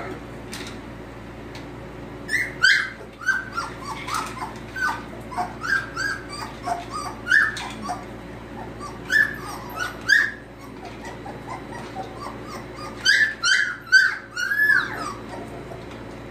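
Golden retriever puppies whimpering and squealing in many short high-pitched cries, coming in bunches with brief lulls, over a steady low hum.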